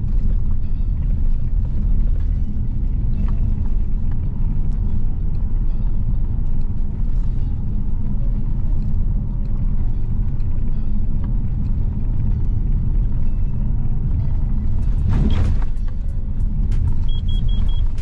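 Steady low rumble of an SUV driving on an unpaved forest road, heard inside the cabin: tyre and road noise with the engine under it. About 15 s in there is a brief louder rush, and near the end background music with an even beat comes in over the rumble.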